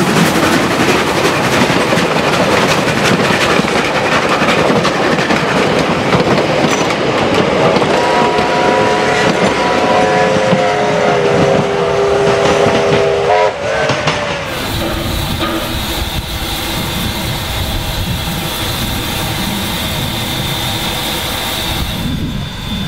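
Steam locomotive of the NZR Ww class running with its train. About eight seconds in its steam whistle sounds for about five seconds, several notes at once. Near two-thirds through, the sound changes abruptly to a steadier running sound with a thin high whine.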